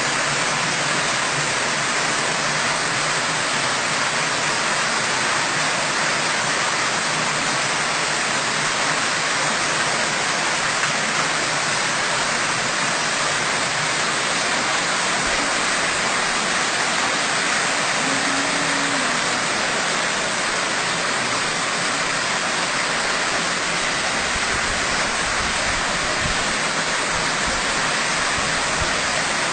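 Water from an ornamental tiered rock fountain falling in sheets from tier to tier and splashing into the pool at its base: a steady, even rush of water.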